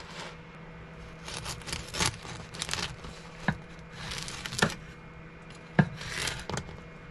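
A knife sawing through a freshly baked, crusty sourdough loaf: several rasping back-and-forth strokes through the crust, with a few sharp knocks in between.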